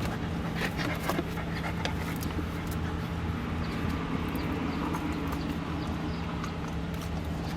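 Light scattered clicks and taps from a plump puppy's paws and claws as it tumbles and rolls about, over a steady low hum.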